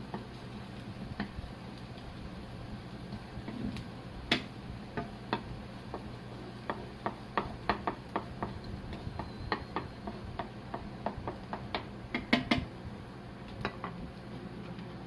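Wooden spatula stirring diced onion and corn in a nonstick frying pan, giving irregular clicks and taps against the pan, thickest in the second half with a loud cluster near the end, then stopping. A steady low hum runs underneath.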